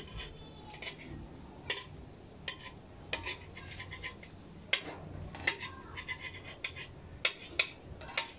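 Metal slotted spatula clinking and scraping against a steel frying pan while a hotcake is turned and pressed: about a dozen sharp, irregular clinks.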